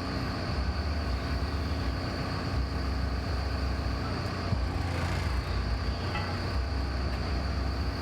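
Heavy machinery running steadily: a continuous low rumble with a steady high whine above it.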